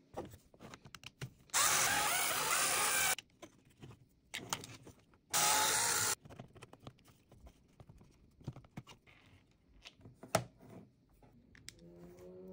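Small electric screwdriver running in two bursts, the first about a second and a half in for nearly two seconds, the second about five seconds in for under a second, undoing the screws that hold a hobby servo in its 3D-printed bracket. Light clicks of handled plastic parts and screws between and after.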